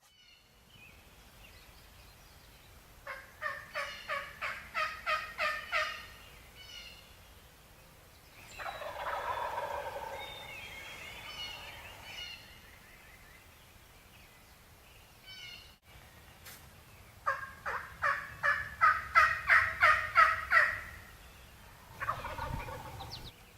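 Wild turkey gobbler gobbling twice, each gobble a rapid rattling run of notes lasting about three seconds. A softer, rougher call sounds between the two gobbles.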